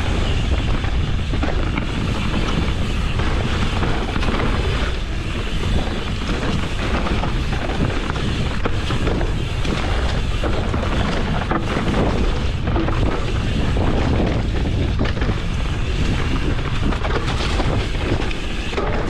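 Steady wind rushing over the microphone of a camera carried on a mountain bike in motion, with rumble and rattle from the tyres and bike on a dirt trail beneath it.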